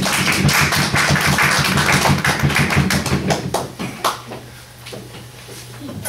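A small audience applauding, a dense patter of hand claps that thins out about four seconds in, leaving a few last claps.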